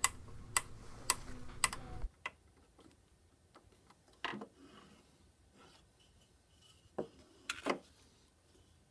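A hand screwdriver tightening a drywall screw into a 3D-printed plastic end cap, clicking about every half second with each turn. Later come a few faint knocks as the screwdriver and the finished tool are handled on a wooden workbench.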